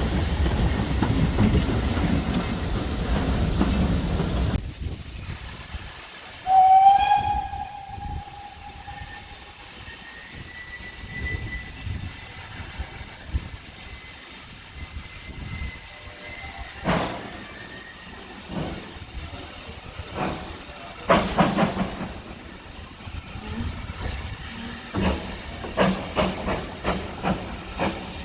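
Steam locomotive whistle sounding once for about a second and a half, followed by exhaust chuffs that start slowly and come faster as the engine pulls away.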